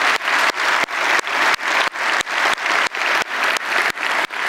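Large congregation applauding.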